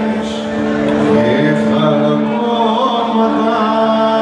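Live band playing a Greek song on acoustic guitar, electric guitar and bass, with a held melody line over steady chords.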